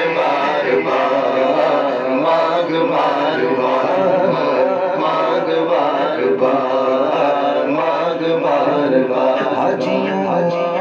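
Male voices chanting an Urdu devotional naat, amplified through handheld microphones, the melody held in long continuous lines.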